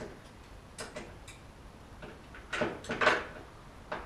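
Metal hand tools clinking and clattering at uneven intervals, with two louder clanks near the end, as someone sorts through tools for a spanner.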